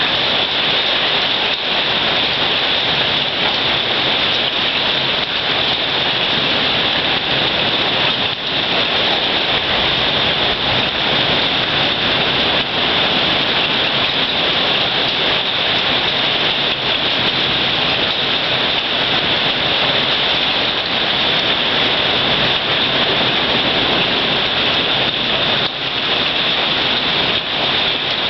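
Hailstorm: hail and heavy rain falling, a loud, steady hiss of countless small impacts with no let-up.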